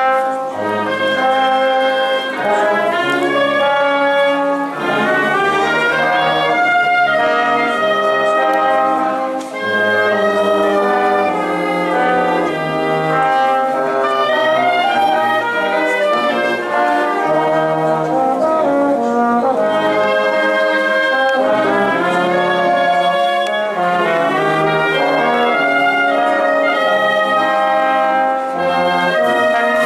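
A wind band of brass and woodwinds, with trumpets, trombones, horns, tubas, clarinets and saxophones, playing a tune in full without a break.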